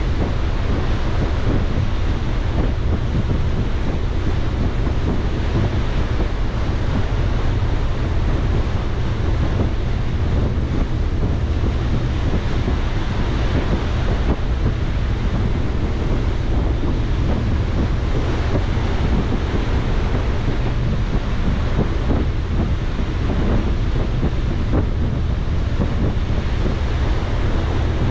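Steady wind buffeting the microphone on the open deck of a ferry under way, over a constant rush of sea water along the hull.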